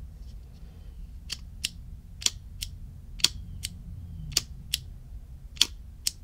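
Ronson De-Light Junior Sport automatic petrol lighter being worked, its lever pressed and released about five times, each stroke a pair of sharp metallic clicks as the arm snaps open against the flint wheel and springs shut. The lighter is being test-fired after a refill of fluid.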